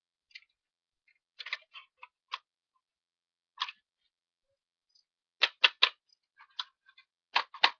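Sharp clicks and taps of hard plastic parts being handled while a toy water gun is taken apart: a few scattered clicks, then a quick regular run of taps, about three or four a second, near the end.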